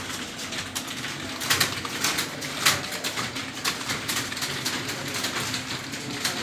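Computer keyboard being typed on: irregular key clicks, several a second.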